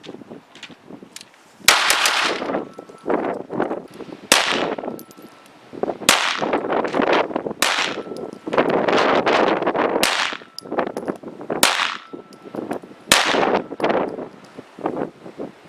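A string of about a dozen rimfire gunshots fired at an irregular pace, each trailing off in an echo, with a faint ringing tone lingering between some of the shots.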